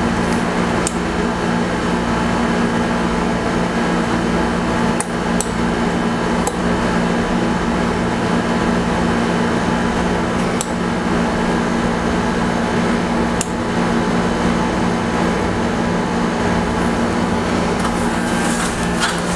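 A steady electrical hum with a stack of fixed tones, with a few faint clicks and taps scattered through it.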